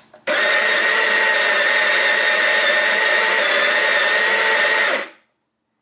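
Baratza Sette 270 espresso grinder grinding a dose of beans: a loud, steady motor whine with a high tone. It starts just after a click, runs about four and a half seconds and cuts off.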